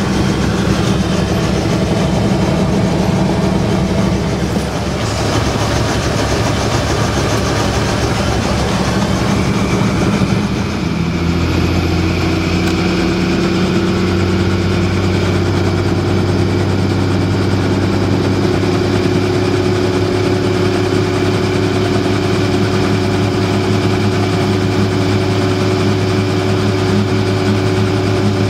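Helicopter engine and main rotor running on the ground before take-off, heard from inside the cabin. The sound is steady and loud; about eleven seconds in, its steady tones shift to a new, lower-based set as the engine's speed changes.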